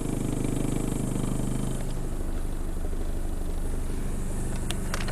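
Mazda 626's 2.0-litre FS four-cylinder engine idling steadily with the AC and fans off, its note shifting slightly about two seconds in. The engine has a bad exhaust valve in cylinder 3 and an exhaust leak at the catalytic converter.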